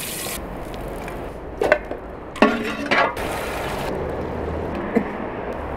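A few short clinks and knocks of enamel dishes and a metal spoon, ringing briefly, the busiest about two and a half to three seconds in, over a steady background hiss.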